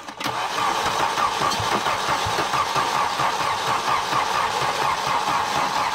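Volvo 740 Turbo's B230FT turbocharged four-cylinder being cranked over by the starter motor, turning steadily with an even pulse but never firing: the engine is not getting fuel.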